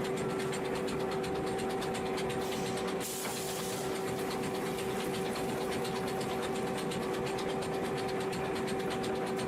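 Machinery running steadily: a constant hum with a rapid, even clatter, and a short burst of hiss about three seconds in.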